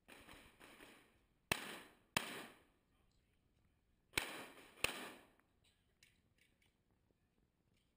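Four pistol shots in two pairs, each shot trailing off in a long echo.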